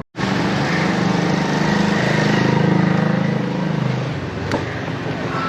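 A motor vehicle's engine running, with road noise, as heard while riding in it. The engine hum grows louder and then drops away about four seconds in, and there is a short click near the end.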